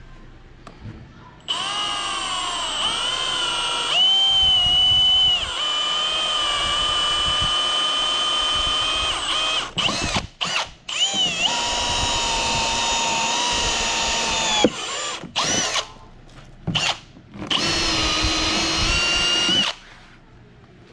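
Cordless drill with a step bit boring a 1-inch hole through a snowmobile's plastic side panel. Its motor whines in three long runs with short blips of the trigger between them, the pitch sagging now and then as the bit bites, starting about a second and a half in.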